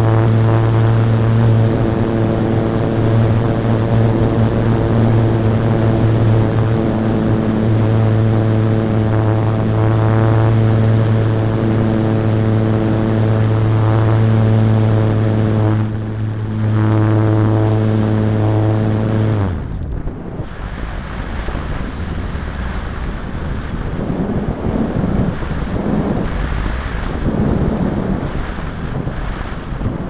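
Motor-driven propeller of a radio-controlled ASW28 model sailplane, heard from on board, running with a steady hum. It dips briefly about sixteen seconds in and cuts off about twenty seconds in, as the model switches to gliding. After that only wind rushes over the airframe and microphone, swelling and fading.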